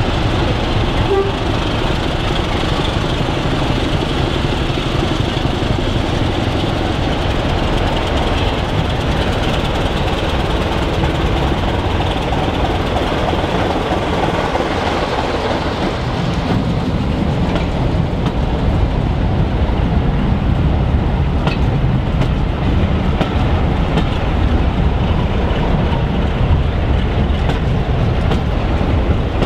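Sulzer six-cylinder diesel engine of a Type 2 locomotive working as it pulls its train away, a steady heavy rumble that grows louder about halfway through as it passes close. The coaches then roll by behind it.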